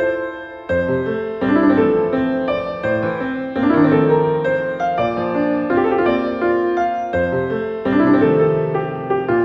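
Solo piano playing a nocturne: a melody over a flowing chordal accompaniment, with deep bass notes entering about every three seconds.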